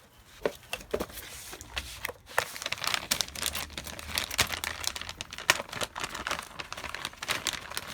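Packaging crinkling and rustling while printer-kit parts are unpacked, with many small clicks and knocks of parts being handled.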